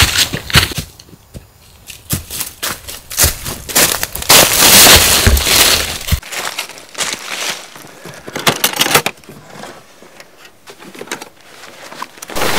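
Footsteps crunching through dry fallen leaves: irregular crisp crackles and crunches, loudest and densest about four to five seconds in.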